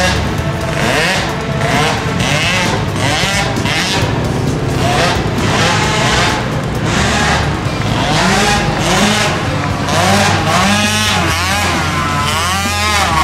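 Several 50cc mini ATV engines running at once, their pitch repeatedly rising and falling as the quads rev up and back off.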